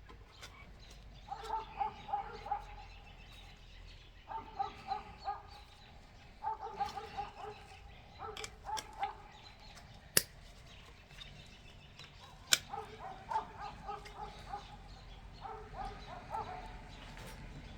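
An animal calling in repeated clusters of short pitched calls, each a quick run of a few calls lasting about a second. Two sharp clicks come about ten and twelve seconds in.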